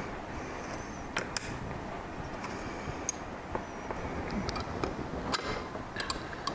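Scattered light clicks and taps of small metal and plastic parts, a watch-crystal press and its dies being handled and fitted together by hand, over a steady low background hum.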